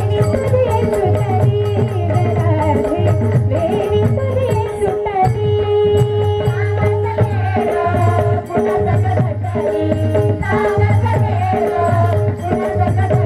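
Marathi devotional bhajan (a gavlan) sung live by female voices into microphones, with harmonium, a steady drum beat and rapid rattling percussion underneath.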